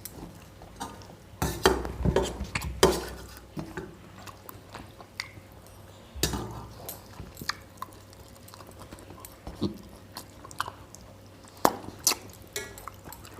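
Eating at a table: chewing, with scattered clicks, knocks and scrapes of food and utensils against plates. A few louder knocks come around 2 s and 6 s in.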